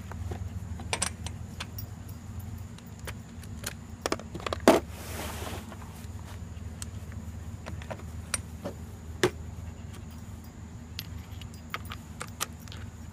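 Metal sockets and tools clinking and clicking in a plastic socket set case as they are picked out, in scattered sharp clicks with a louder clatter about five seconds in.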